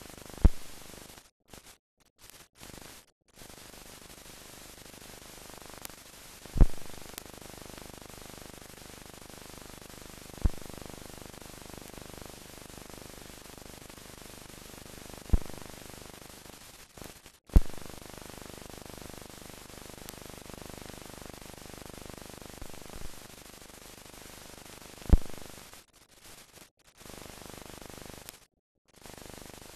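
Steady hiss with no sound from the scene itself: the background noise of a silent newsreel's film transfer. About six sharp low pops come a few seconds apart, and the hiss drops out to silence briefly a few times near the start and end.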